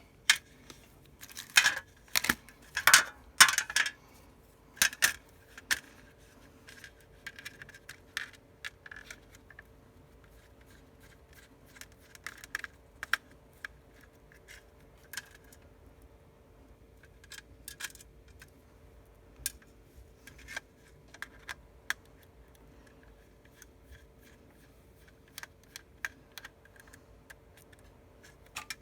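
Small metallic clicks and scrapes of a precision Phillips screwdriver working the tiny screws inside an iPhone 6s, along with tools and parts being handled on a hard surface. The clicks come in a loud cluster in the first few seconds, then thin out to scattered faint ticks over a faint steady hum.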